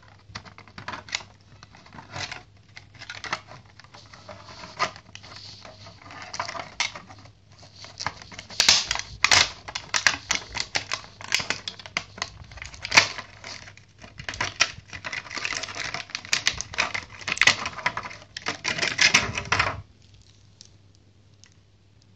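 Moulded plastic packaging tray crackling and clicking under the hands as a small electronic speed controller is worked out of it. The rapid, irregular crinkles and clicks grow louder about a third of the way in and stop suddenly near the end.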